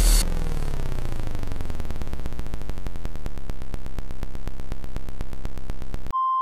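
Electronic glitch sound effect: a rapid, even train of pulses that runs together into a buzz. Near the end it cuts off sharply into a steady high electronic beep like a test tone.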